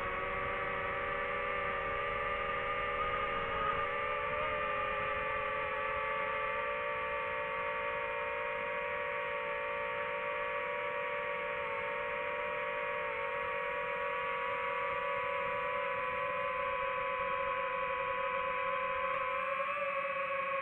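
DJI FPV drone's motors and propellers whining steadily as it hovers and descends slowly, the pitch drifting a little as the throttle changes.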